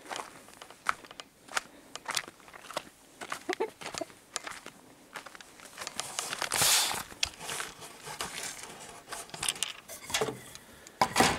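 Footsteps and crackling rustles with scattered clicks, a longer rustle about six and a half seconds in, and a loud knock near the end.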